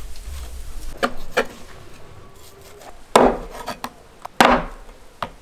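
Cleaver chopping through raw lamb ribs onto a wooden chopping board: several sharp strikes, the two heaviest in the second half. Quieter scraping of the blade along the meat and bone comes between them.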